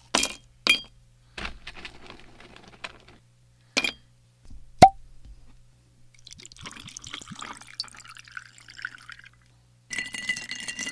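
A drink being served into a glass: a few sharp glass clinks, one loud sharp clink about five seconds in, then liquid pouring for about three seconds, and another hissing pour with a faint ring near the end.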